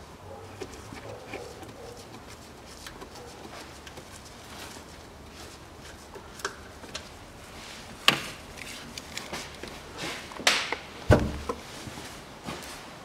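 Hand tools and metal engine parts being handled under the hood during timing-cover removal: scattered, irregular clicks and knocks. A few sharper knocks come about eight seconds in and again near the end, one of them with a dull thud.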